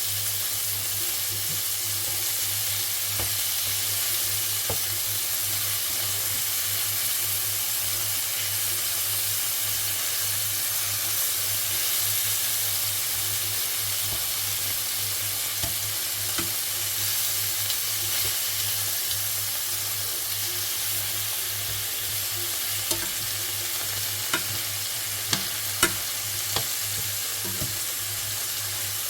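Food sizzling steadily in a frying pan, with a few sharp clicks near the end.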